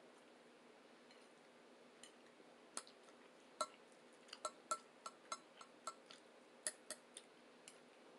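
Cutlery clicking and clinking against a plate while eating: about a dozen sharp, lightly ringing clicks, most of them bunched in the second half. A faint steady hum runs underneath.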